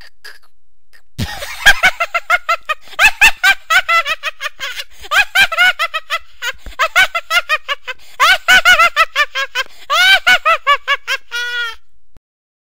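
High-pitched cartoon-voice laughter: rapid, repeated giggling and snickering that breaks out about a second in, goes on in waves for about ten seconds and cuts off suddenly near the end.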